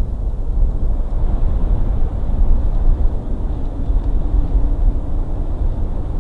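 Wind buffeting the nest camera's outdoor microphone: a loud, uneven low rumble with no distinct events.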